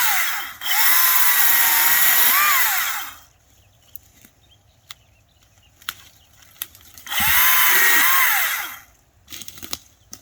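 Echo DCS-2500T 56-volt brushless electric chainsaw running with a high whine while cutting brush, its pitch dipping and recovering as the chain takes load. It stops about three seconds in, a few sharp clicks follow, and it runs again briefly near the end.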